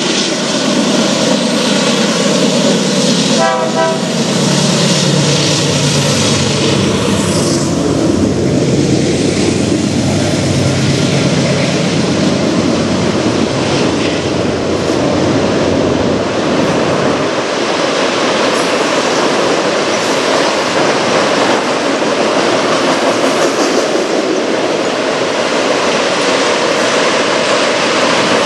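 Diesel freight locomotive approaching and passing under the bridge with its engine running, followed by a long string of autorack cars rolling by with a steady rumble of wheels on rail.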